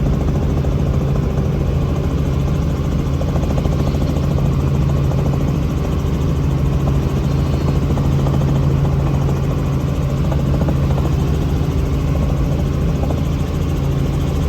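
Helicopter engine and rotor running in flight: a loud, steady low drone with a constant hum.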